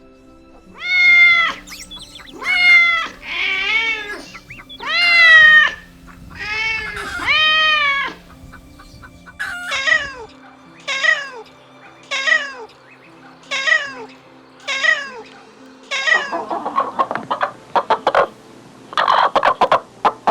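Kittens meowing over and over: about seven long, drawn-out meows in the first eight seconds, then six shorter, higher meows about one a second. Near the end they break into a run of rapid, rougher calls.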